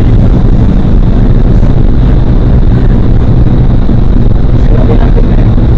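Indoor vertical wind tunnel running at flying speed: a loud, steady, deep rush of air and fan noise.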